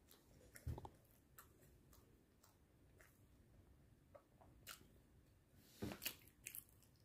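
Near silence with faint mouth sounds of chewing soft sliced bread and a few soft clicks.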